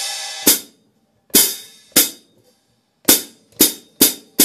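Zildjian K Custom Hybrid 13.25-inch hi-hats, a thin top over a medium bottom with Master Sound grooves, played with a stick: about seven sharp open-and-closed strikes, each ringing briefly before being cut off, the hits coming quicker in the last second and a half.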